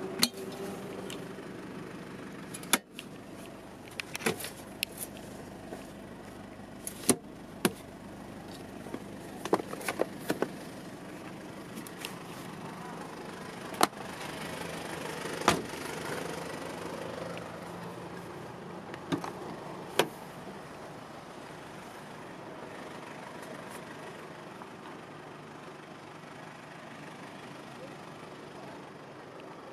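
Handling noises on a Mitsubishi Pajero's interior and doors: about a dozen sharp clicks and knocks at irregular intervals over the first twenty seconds, over a steady background hum.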